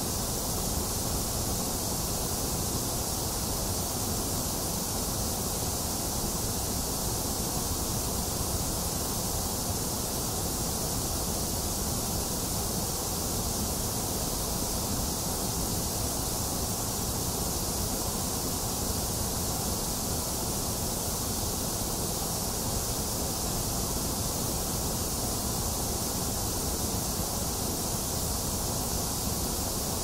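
Steady white noise: an even, unchanging hiss with no separate drops or patter.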